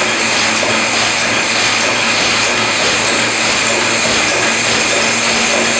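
Steam hissing steadily and loudly as it blows out around the 25 hp steam engine while the engine is being started up.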